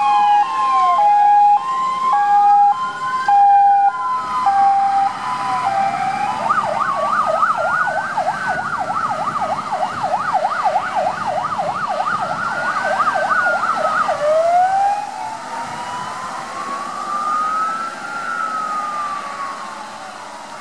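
Fire engine sirens on an emergency run, several at once. A slow rising-and-falling wail overlaps a two-tone hi-lo for the first few seconds. A fast yelp runs from about six to fourteen seconds, then the wail returns and fades as the trucks drive away.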